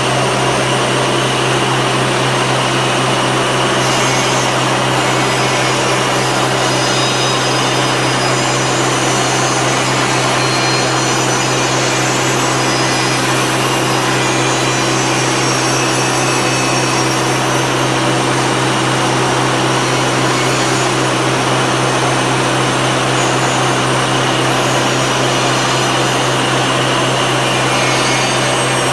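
Robotic casting grinding and deburring cell running, its motor-driven spindles making a steady, loud machine noise with a constant low hum and a thin high whine.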